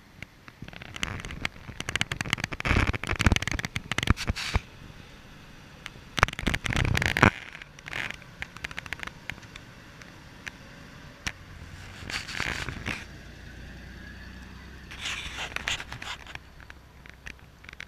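Toyota Land Cruiser crawling over a dirt trail: irregular bursts of crackling and scraping from tyres on dirt, leaves and stones, with a steady low engine rumble from about eight seconds in.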